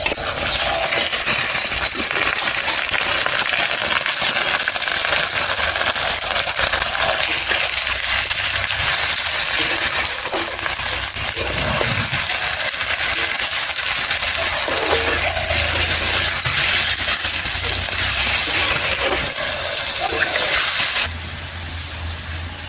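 Raw mutton sizzling loudly in hot oil in a cast-iron kadai, with a metal spatula clinking and scraping against the pan as the meat is stirred. The sizzle drops off abruptly near the end.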